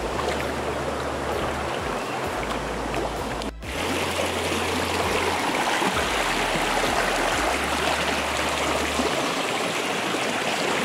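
Steady rush of a rocky stream, with water pouring and splashing over rock, and a brief break about three and a half seconds in. Under it runs background music with held low bass notes.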